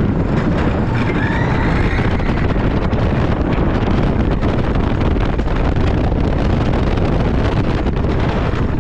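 RMC Topper Track wooden roller coaster train running at speed: the steady roar of its wheels on the track, with heavy wind rushing over the microphone.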